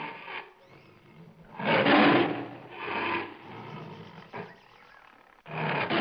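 Recorded animal roaring in rough, noisy bursts: a loud roar about two seconds in, a shorter one just after, and another starting near the end.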